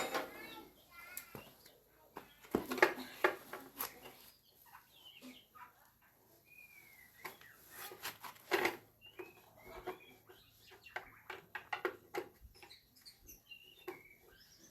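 Scattered sharp clicks and knocks of hand tools working on metal machine parts, with birds chirping now and then in between.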